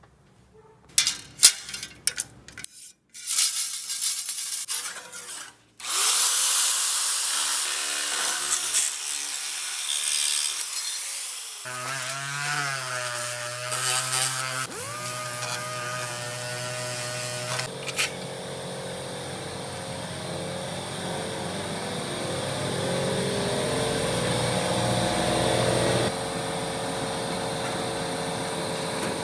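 Power tools working sheet metal: a few sharp clicks and knocks, then a long stretch of harsh grinding noise. A motor's whine then rises and falls under load and steadies near the end.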